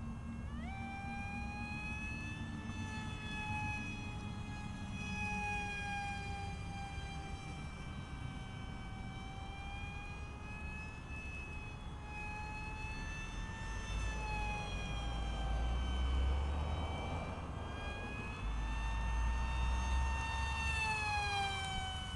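Electric motor and propeller of a radio-controlled model airplane whining overhead. Its pitch jumps up about half a second in as the motor speeds up, then drifts slowly up and down. A low rumble comes twice in the second half.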